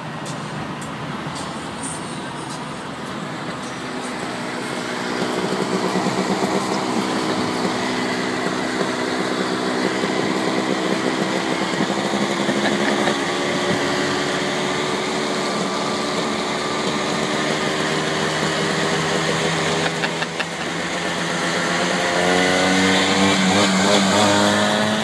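Vintage Vespa scooter's two-stroke engine running at speed close alongside, over tyre and road noise. Its pitch rises steadily near the end as it accelerates.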